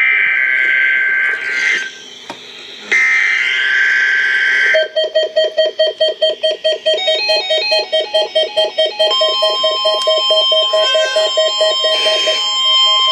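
EAS/SAME digital header on NOAA Weather Radio: two bursts of data-tone noise about a second apart. These are followed by rapid electronic alert beeping, about four beeps a second, with a steady higher tone joining about nine seconds in, marking the start of the Required Weekly Test alert.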